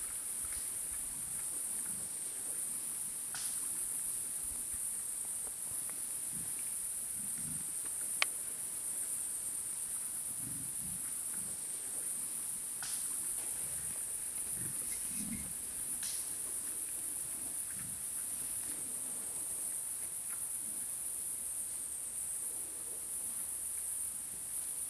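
Steady, high-pitched chirring of crickets, with soft, short low sounds from wild boar foraging in the undergrowth and a few sharp snaps, the clearest about eight seconds in.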